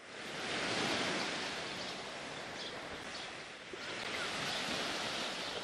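Small sea waves breaking and washing up on a sandy shore: a steady surf that fades in at the start and swells twice.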